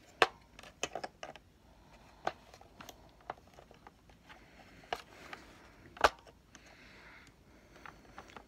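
Hard plastic parts of a Nerf Modulus blaster clicking and knocking as they are handled and fitted together, with a sharp knock just after the start and another about six seconds in.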